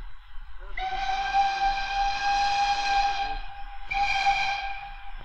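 Steam locomotive whistles: one long blast of about two and a half seconds, then a second, shorter blast about a second later. This is the whistle exchange between the train's engines and the banking engine, a signal before a steam train starts away.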